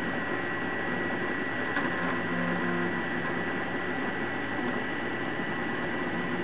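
Prusa i3 3D printer printing: its stepper motors move the print head and bed in short, changing pitched tones over the steady rush of the hotend's cooling fans, with a thin steady high whine.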